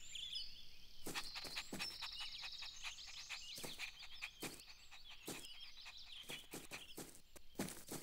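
Faint cartoon garden ambience: birds chirping, with soft irregular taps like small footsteps running through it, more of them near the end.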